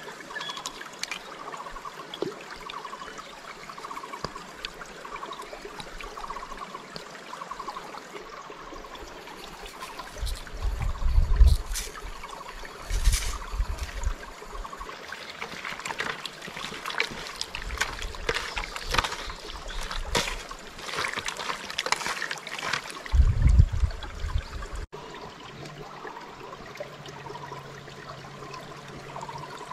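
Shallow river water trickling and splashing, with a spell of sharp splashes in the middle. Two bouts of low rumbling thumps, the loudest sounds, come about eleven seconds in and again near twenty-three seconds.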